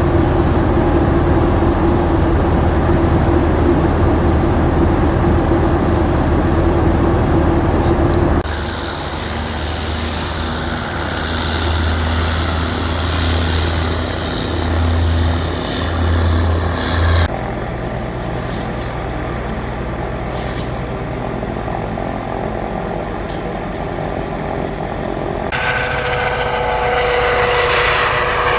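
Helicopter turbine and rotor noise in several clips that change abruptly about 8 seconds in, about 17 seconds in and near 26 seconds, each with a steady engine whine. Near the end the whine rises in pitch.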